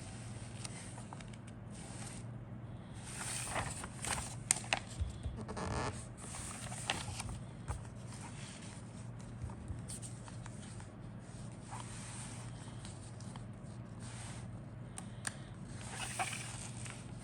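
Rustling, crinkling and scraping of kit packaging and plastic parts being handled, with a run of sharp clicks and scrapes about four to seven seconds in, over a steady low hum.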